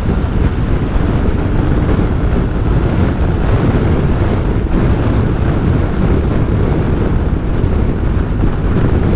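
Steady, loud wind rushing over the camera microphone of a motorcycle riding at road speed, with low road and engine rumble underneath.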